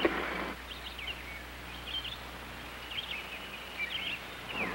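Small birds chirping, short quick notes recurring about once a second, over a steady low hum.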